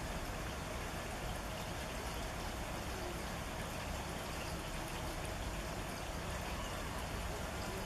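Rain falling steadily, an even, unbroken wash of water noise.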